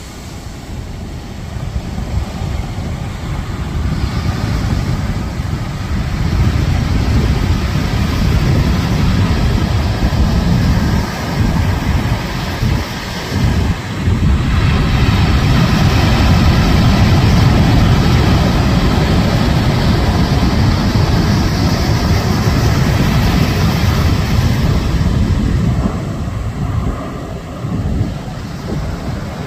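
Wind buffeting the phone's microphone over surf breaking and washing up the beach. The noise is loud and unsteady, swelling from about halfway through and easing off near the end.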